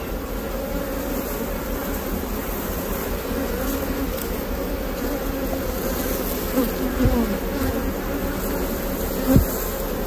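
Steady dense buzzing of a mass of honeybees from an open, queenless hive, with bees swarming over a lifted frame. A soft knock sounds near the end.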